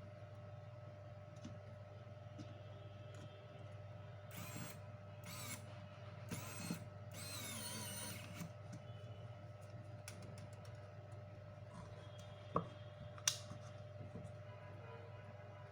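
Faint work noises over a steady hum: several short whirring bursts, like a small motor, a few seconds in, then two sharp clicks.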